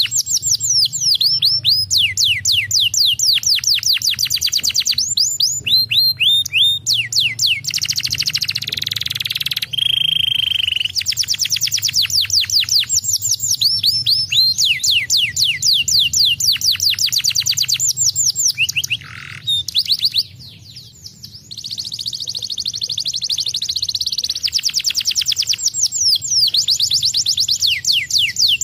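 Domestic canary singing a long, fast song: runs of rapid falling whistled notes, with a buzzy stretch and a short held note about ten seconds in, and a brief break about twenty seconds in.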